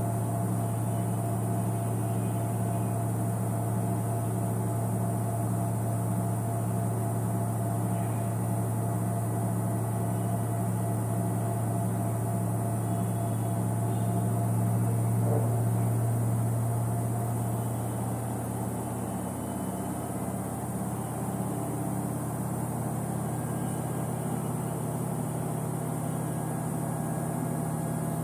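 Samsung front-load washing machine running mid-cycle: a steady motor hum with a regular pulse in it, changing tone about two-thirds of the way through.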